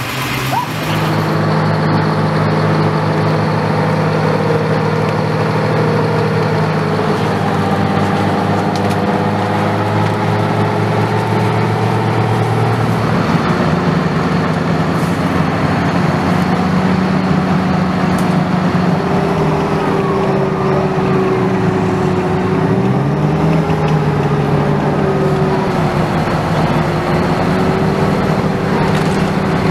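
Engines of armored tracked military vehicles running, a steady heavy engine note whose pitch drifts slowly up and down. The sound changes character partway through as another vehicle takes over.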